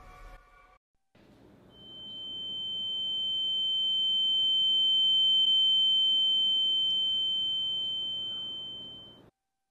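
A single steady high-pitched electronic tone that swells louder to a peak about halfway through, then fades and cuts off suddenly, over a faint low hum.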